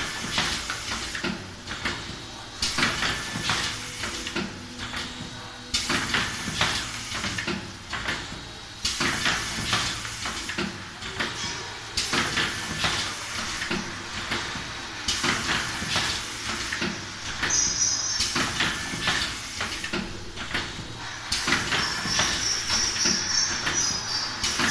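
Robocap 20 N Nespresso-compatible capsule filling and sealing machine running. A burst of hiss and clatter repeats about every three seconds, one machine cycle per capsule, matching its rated 20 capsules a minute.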